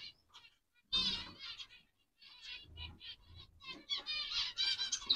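Zebra finches calling: a string of short chirps, broken by two brief pauses in the first two seconds and growing busier in the second half.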